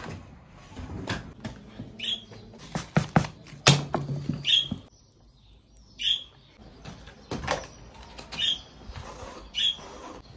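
Guinea pig squeaking in short high calls, repeated every second or two, with a few sharp knocks about three seconds in.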